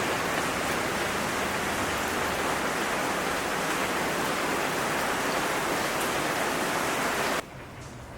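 Steady rushing hiss with no tone in it, starting suddenly and cutting off abruptly about seven seconds in.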